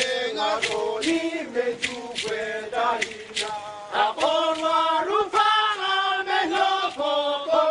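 A group of men chanting together in a Vanuatu custom dance song, with sharp strikes keeping a beat roughly every second.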